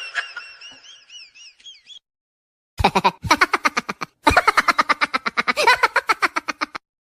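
Edited-in cartoon sound effects: a high, wobbling warble that fades away, then after a short gap a fast run of rapidly repeated pitched pulses, about ten a second, that stops abruptly.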